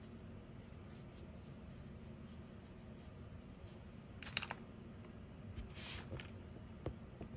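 Quiet room tone with faint handling sounds of a wooden-mounted rubber stamp and ink pad: two short rustling scrapes about four and six seconds in, then two light taps near the end.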